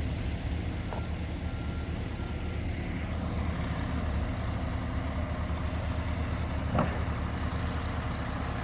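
An engine idling steadily under a thin, faint high whine, with one short sharp knock about seven seconds in.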